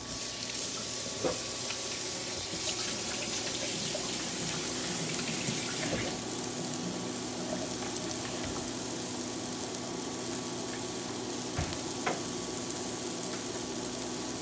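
Ground beef and bacon kebabs on flat metal skewers sizzling steadily on a hot grill pan, cooking in their own bacon fat. A few light knocks come through, one about a second in and a couple near the end.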